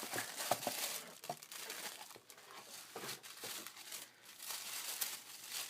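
Packaging crinkling and rustling as it is handled and pulled out of a craft subscription box, with irregular rapid crackles.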